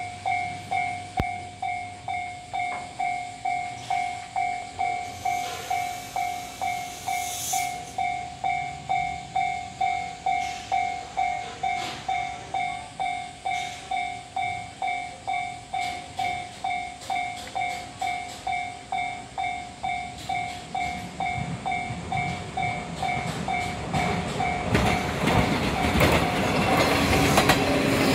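Level-crossing warning bell ringing in a steady pulse, just under two strikes a second. From about twenty seconds in, a JR West 105 series electric multiple unit approaches and grows louder, with rapid clicking of wheels over rail joints as it passes near the end.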